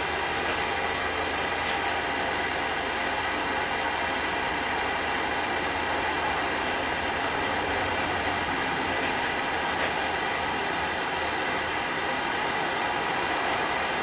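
Home-built propane burner running, its flame giving a steady, even rushing hiss of burning gas.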